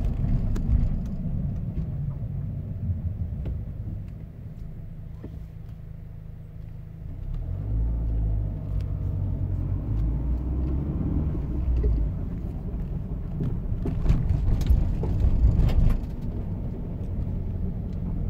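Renault Kangoo 4x4 driving, with a low drivetrain rumble and rattling knocks from the gearbox; the owner suspects a worn bearing and damaged gear flanks in the front-drive differential. The rumble eases for a few seconds about four seconds in, then grows louder again, with a few sharp knocks near the end.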